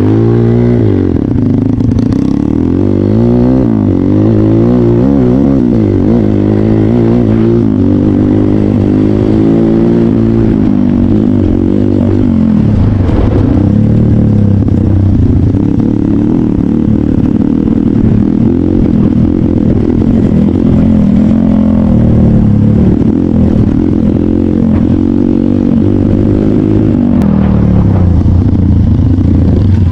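Trail motorcycle engine running under way, its pitch rising and falling repeatedly as the rider works the throttle.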